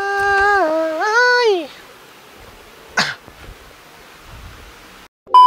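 A person's high-pitched, drawn-out 'aaaa' cry lasting about two seconds, dipping, rising and then falling away. A single short sharp sound follows about three seconds in, and a steady beep starts just before the end.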